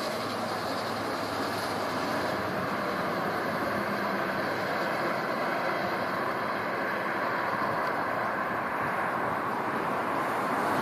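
Steady rumble of a locomotive running light as it draws away out of sight; its higher-pitched noise dies away about two seconds in.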